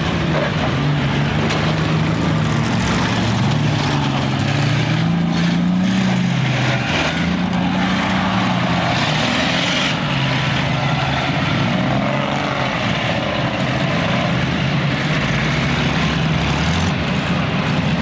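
Several demolition derby car engines running hard together on a dirt track, their pitches wavering up and down as the drivers rev.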